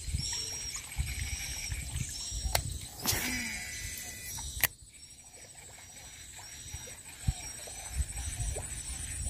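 A baitcasting reel being cast: about three seconds in the spool whirs as line pays out, falling in pitch, and a sharp click follows about a second and a half later. A faint high chirp repeats about twice a second throughout.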